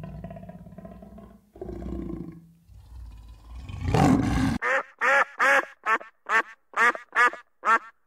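A leopard's low, rough growling rumble swells and then cuts off about four and a half seconds in. A ruddy shelduck follows with about eight short nasal honking calls, a little over two a second.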